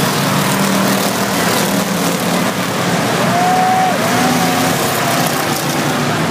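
Dirt-track race cars running laps around the oval, their engines heard together as a loud, steady din with a low hum. A thin wavering tone sounds about three seconds in.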